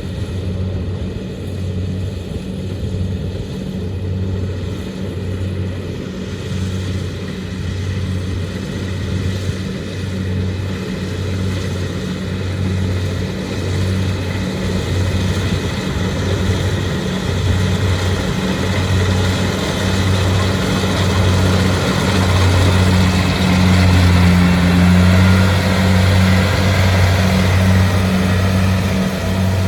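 Kubota DC-70 rice combine harvester's diesel engine running steadily under working load, with a low throb that pulses about once a second. It grows louder in the second half, with more rattle and whir from the machine.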